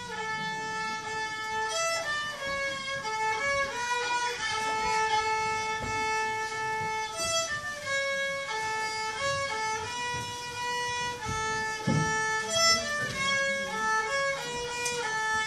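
Solo fiddle played by a young girl: a bowed fiddle tune moving from note to note, with a few notes held long.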